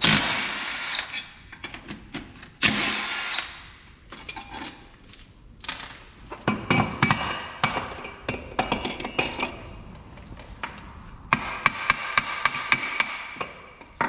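DeWalt cordless impact wrench run in short bursts, rattling 15 mm bolts out of a removed steering spindle, followed by a run of sharp metallic clanks and clinks as the steel parts are handled.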